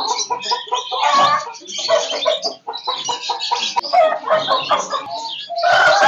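Caged Aseel chickens clucking, with many short calls overlapping. Near the end a rooster starts a loud crow.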